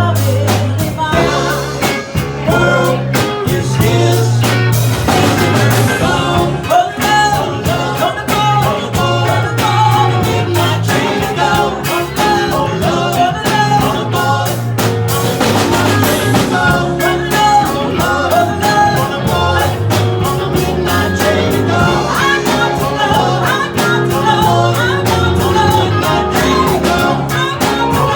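Live band playing a song: guitar and drums with singing.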